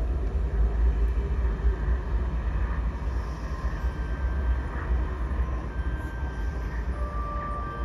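A deep, steady rumbling drone with a hiss, part of a marching band show's music in a quiet, dark passage. Faint held notes come in about four seconds in and again near the end.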